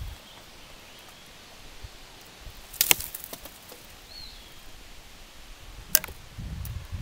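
Someone moving through woodland undergrowth with a handheld camera, with two sharp snaps of twigs or branches: a loud one about three seconds in and another near six seconds. Low rustling and handling noise follow toward the end.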